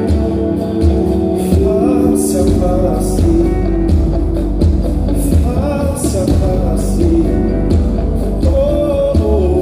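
Live band playing: a drum kit with repeated cymbal hits and a steady bass-drum pulse under bass, keyboards, guitar and a wavering melody line, heard from the audience of a concert hall.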